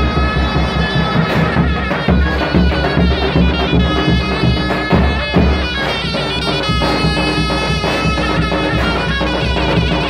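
Loud Turkish folk dance music for a Bayburt bar, with a steady drum beat under a wind-instrument melody.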